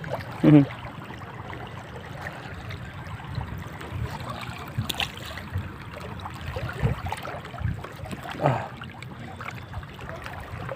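Water lapping and trickling steadily, with a short falling pitched sound about half a second in and another near the end.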